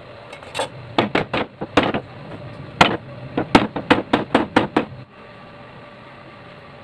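A quick run of about fifteen sharp wooden knocks as a chair leg is driven down into its glued mortise joint. The knocks come irregularly and stop about five seconds in.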